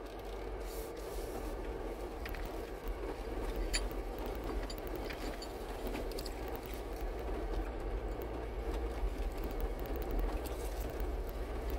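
A 4x4 crawling along a rocky gravel track, heard from inside the cab: a steady engine and tyre drone with a low rumble, and a few sharp clicks and ticks from stones under the tyres.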